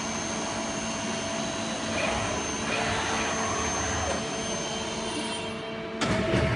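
Miyano CNC lathe running, with a steady machine hum and a thin, high, steady whine. Near the end the sound gets suddenly louder, with clicks.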